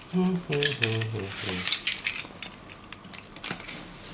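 A brief spoken phrase at the start, then clicks, knocks and rustling of a cardboard box being handled, with one sharp click about three and a half seconds in.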